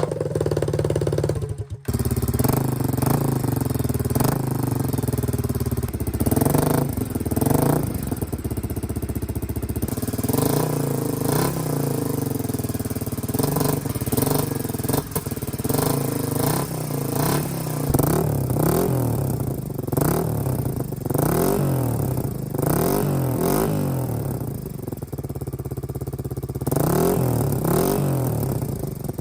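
Suzuki DR250 SHC's single-cylinder four-stroke engine running through an aftermarket SuperTrapp disc muffler, idling and being revved up and down again and again. A brief break about two seconds in, after which the exhaust note carries on with the same blips.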